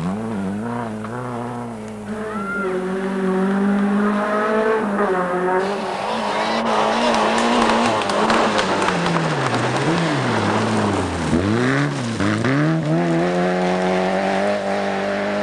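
Rally car engines at full throttle on a gravel stage, the pitch climbing and dropping again and again with gear changes. A rough spell of tyre and gravel noise comes in the middle as a car slides past close. Near the end come three quick lifts and blips of the throttle, then a long rise in one gear.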